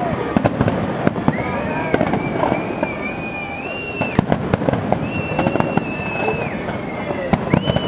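Fireworks display: dense, rapid bangs and crackling of shells bursting. Several long, high, nearly steady whistles sound over them.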